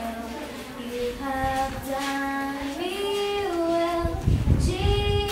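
A child singing solo and unaccompanied, holding long notes that step up and down between pitches. A few low thumps come in about four seconds in.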